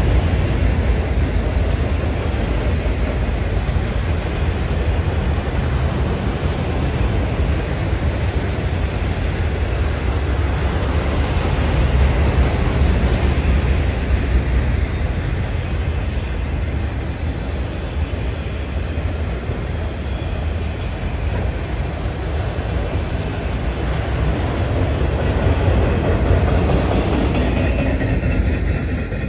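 Norfolk Southern freight train's cars rolling past, a steady rumble and clatter of steel wheels on rail.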